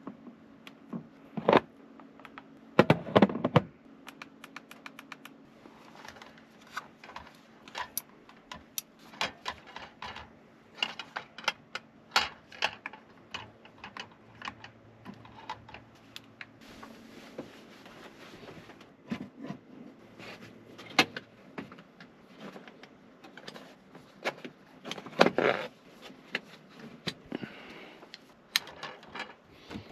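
Irregular clicks, taps and knocks of small objects being handled, with louder clattering about three seconds in and again near twenty-five seconds in, over a faint steady hum.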